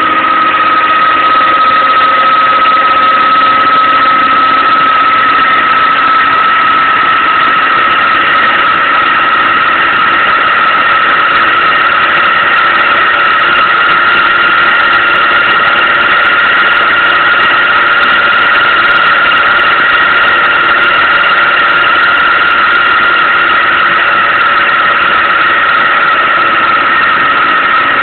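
Three-phase electric motor on a variable-frequency drive, coupled to a generator, running at speed with a loud steady high whine. The pitch rises a little and then eases back as the drive's frequency is stepped up and then down.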